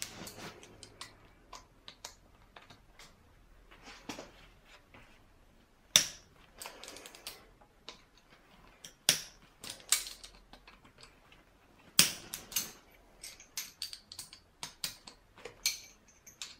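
Irregular clicks, taps and a few louder knocks of hand tools and metal parts handled on a Toyota 4A-GE throttle body while the idle speed control valve is being unscrewed from it.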